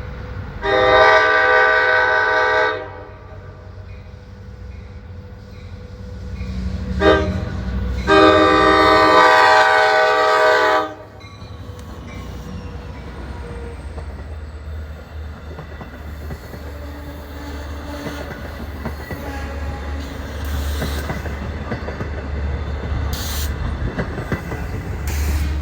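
LIRR DE30AC diesel locomotive sounding its air horn in a long blast, a short one and another long one. Then its diesel engine runs with a steady low rumble as the train pulls in.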